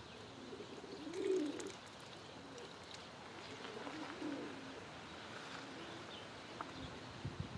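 Pigeons cooing: low, rising-and-falling coos a few seconds apart, loudest about a second in, with faint higher chirps from small birds.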